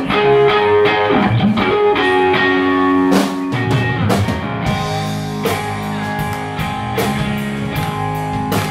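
A rock band playing live: an electric guitar plays the opening line with sliding notes, then bass guitar and drums come in about three and a half seconds in, and the drums keep a steady beat.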